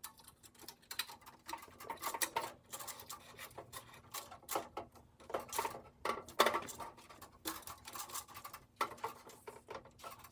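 Handling noise: irregular small clicks and scrapes as an electrical cable and its cable clamp are pushed through the knockout hole of a metal floor outlet box.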